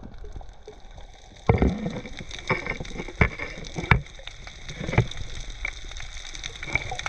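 Muffled underwater sound picked up by a camera in its underwater housing: a steady water hiss with irregular sharp knocks and clicks, the loudest about a second and a half in.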